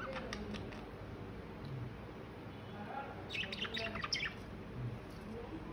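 Pet budgerigars chirping: a few short chirps at the start, then a quick flurry of chirps about three to four seconds in.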